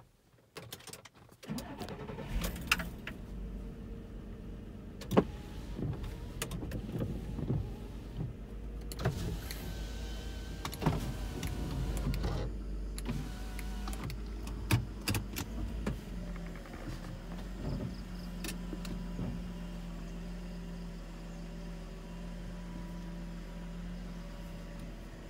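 Volkswagen T4 camper van heard from inside the cabin while driving: a steady low engine and road rumble, with scattered knocks and clicks over it.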